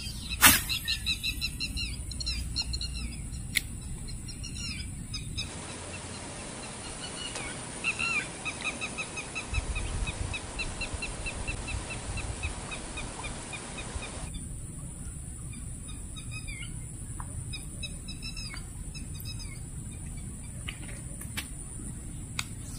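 Birds chirping and calling repeatedly in a series of short quick notes, with one sharp swish of a fishing rod casting a lure about half a second in.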